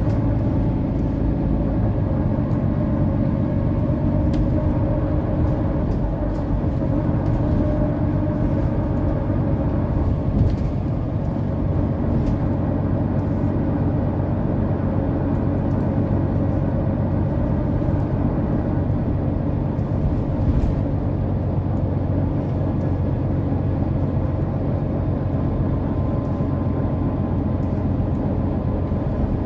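Mercedes-Benz O530 Citaro city bus driving at a steady speed, heard from inside the passenger cabin: an even engine drone with road noise and a few faint ticks.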